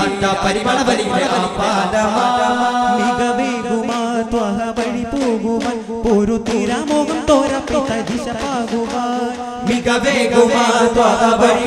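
Daff muttu: a group of boys chanting a devotional song in unison while beating daff frame drums in a shared rhythm. The drumming grows busier about halfway through, and the whole gets louder near the end.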